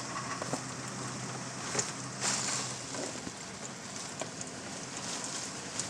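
Hurricane wind and rain: a steady rushing noise with scattered small ticks, swelling briefly about two seconds in.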